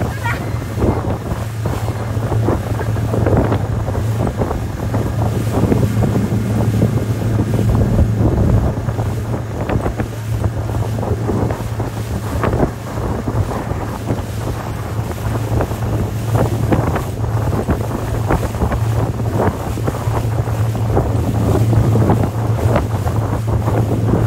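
Outboard motor running steadily at speed while towing, a constant low drone, under heavy wind buffeting on the microphone and the rush of the churning wake.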